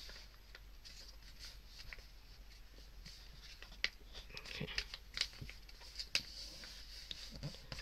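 A sheet of printing paper being folded and creased by hand: faint rustling, with a few sharper crinkles and ticks about halfway through.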